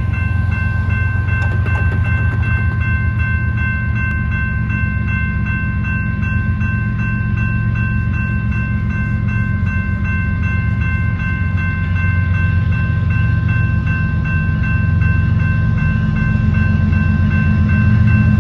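Railroad grade-crossing bell ringing in a fast, steady rhythm. Under it, the low rumble of an approaching diesel freight locomotive grows louder near the end.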